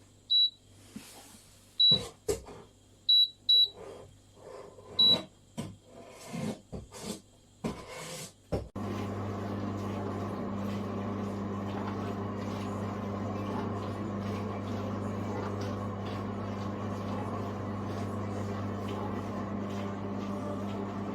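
Cookology CMDW2 countertop dishwasher: its control panel beeps about five times as buttons are pressed, with clicks of handling between. About eight seconds in, the machine starts running with a steady hum and the rush of its wash.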